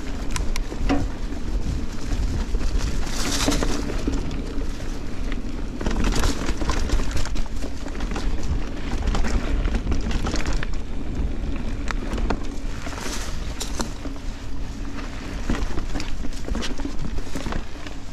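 Giant Trance 29 mountain bike ridden fast on dirt singletrack: continuous tyre rumble and wind on the microphone, with frequent clicks and rattles as the bike goes over bumps and surges of hiss every few seconds.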